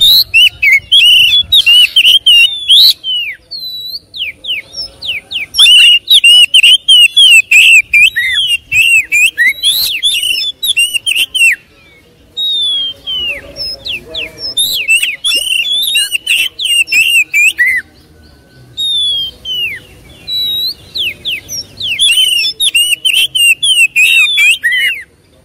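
Oriental magpie-robin singing loud, full song: long runs of rapid, varied whistles and chirps that slide up and down, broken by three short pauses.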